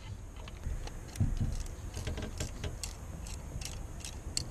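Light metallic clicks and clinks, irregular and scattered, from threading a fitting into the engine block by hand and handling a wrench, with one dull knock about a second in.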